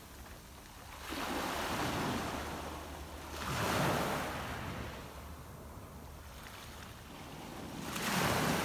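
Gentle waves lapping on a shingle beach: washes of surf that swell and fade, the strongest about four seconds in and another near the end.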